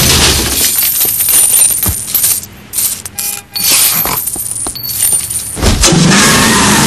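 A hard kick against a coin-operated kiddie ride, then coins spilling and clattering out for about two seconds, as cartoon sound effects. A heavy thud, a car door shutting, comes about five and a half seconds in, with a car engine starting up just after it.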